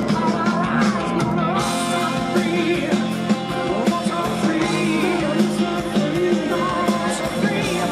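Rock band playing live: electric guitars, bass, keyboards and drums, with a bending lead line over a steady groove. The sound gets brighter about a second and a half in.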